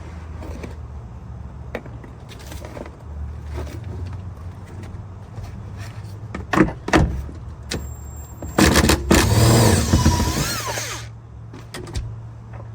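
A few sharp knocks, then a power tool runs for about two and a half seconds on a seat-mounting bolt in the truck cab floor, its pitch falling as it winds down before it stops.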